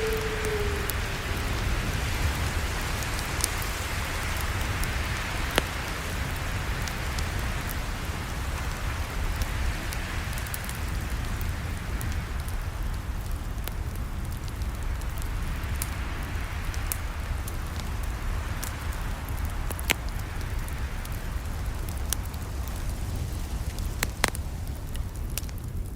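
Campfire burning with a steady low rush and hiss, broken by scattered sharp pops and crackles, a handful of them louder than the rest.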